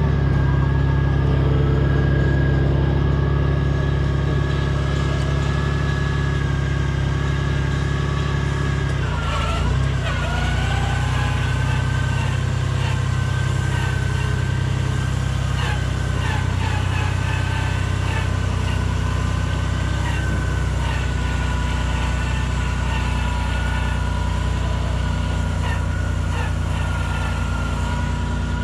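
Honda Gold Wing touring motorcycle engine idling steadily, with a faint high whine over it. The engine note shifts briefly about nine seconds in, then settles again.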